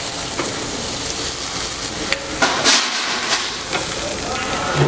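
Pork sizzling on a slotted tabletop grill plate over charcoal, a steady hiss, with a few sharp clicks of metal tongs on the grate about two to three seconds in.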